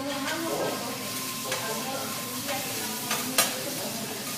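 Food sizzling on a hot teppanyaki griddle as it is stirred and turned, with a few sharp clicks, the loudest about three and a half seconds in.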